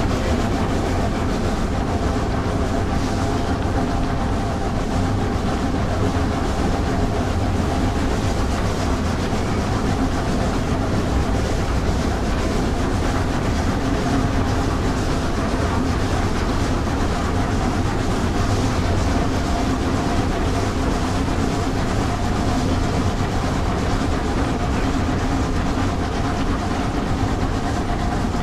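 Steam train running along the track, wheels on the rails making a steady running noise with no clear beat.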